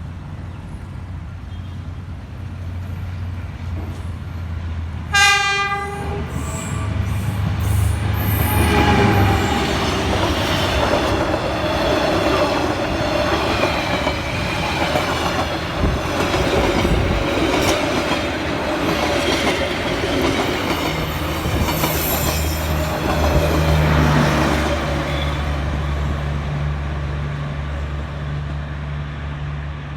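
A train horn gives one short, loud blast about five seconds in. Then a train passes close by, a long rolling rumble of wheels on the rails that swells and fades away near the end, over a low steady hum.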